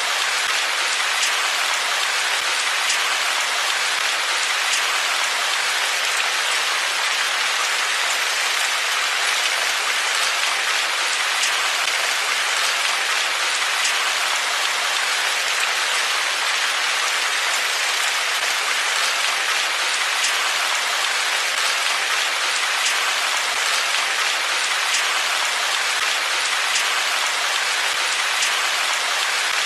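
Steady rain falling, an even dense hiss with faint scattered drop ticks throughout.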